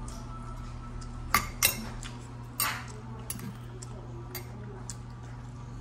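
Metal fork clinking against a glass baking dish while scooping salad: three sharp clinks between about one and three seconds in, then a few lighter taps.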